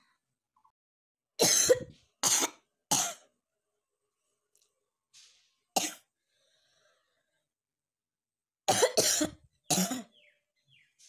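A person coughing on purpose for a cough challenge: three quick coughs, a single cough a few seconds later, then another run of three.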